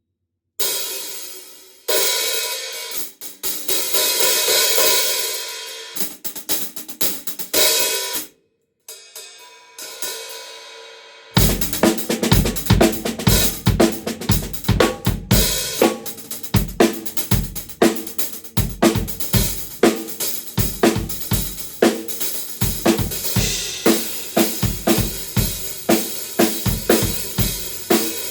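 Sabian Artisan 14-inch hi-hat cymbals played on their own for about the first eleven seconds, ringing strokes that swell and fade. A drum kit then comes in with bass drum and snare in a steady beat, with the hi-hat keeping time over it.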